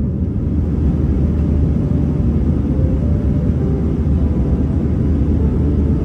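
Jet airliner cabin noise: the steady low rumble of the engines and rushing air heard from a window seat.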